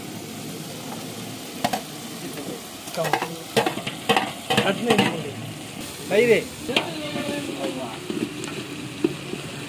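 Field snails frying with onions, tomatoes and green chillies in a large aluminium pot, sizzling steadily while being stirred, with scrapes and knocks at intervals.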